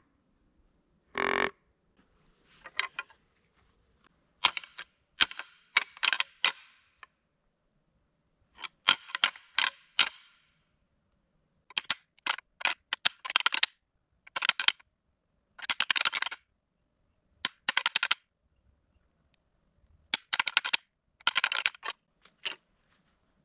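Deer rattling: antlers clashed and ground together in bursts of sharp clicking and clacking with pauses between, imitating two bucks fighting in the rut. A short pitched call comes about a second in.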